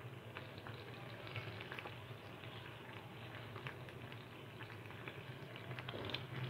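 Faint sizzling and bubbling of a honey, garlic, ketchup and soy sauce mixture cooking in oil in a frying pan, with many small pops, over a low steady hum.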